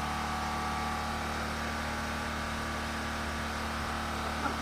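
Steady engine or machinery hum, several low tones held level without rising or falling.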